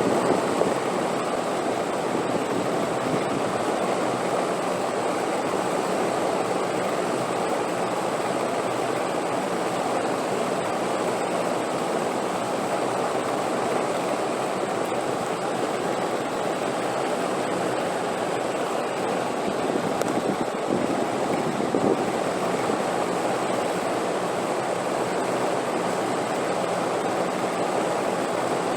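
Steady rushing wind, an even noise with no distinct gusts, swelling slightly about two-thirds of the way through.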